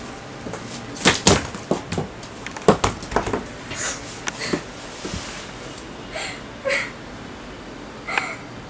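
Several knocks and thumps against wooden wardrobe doors as a person slumps down against them, then a few short, breathy sobs.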